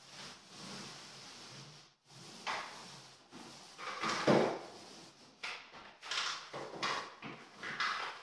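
Paint roller on an extension pole rolling paint onto a wall: repeated swishing strokes at an irregular pace, the loudest about four seconds in.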